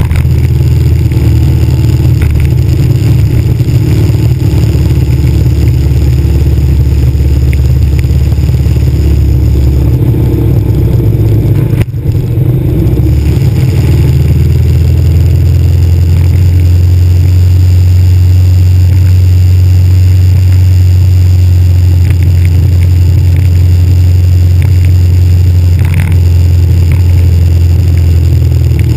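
Motorcycle engine running while riding at road speed, heard through heavy wind buffeting on a handlebar-mounted camera. It breaks off briefly about 12 seconds in, and after that the low engine note runs steadier.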